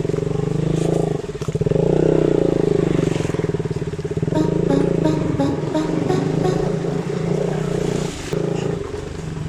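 KTM 200 Duke's single-cylinder motorcycle engine running at low speed, its pitch rising and falling with the throttle, with a brief dip about a second and a half in.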